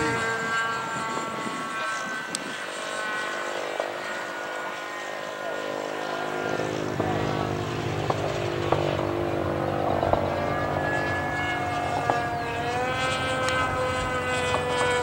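Radio-controlled model airplane's engine and propeller droning in flight, a high steady tone. It fades as the plane moves away, then grows louder again and rises in pitch near the end as the plane comes back around.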